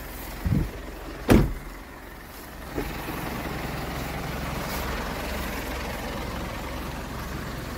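Mitsubishi L200 pickup's engine idling with a steady low hum. Two thumps come in the first second and a half, the second louder, and from about three seconds in the running noise turns louder and steadier.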